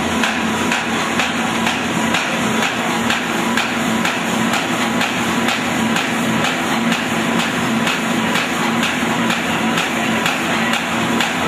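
Paper bag making machine running, with a fast, even mechanical knocking over a steady hum.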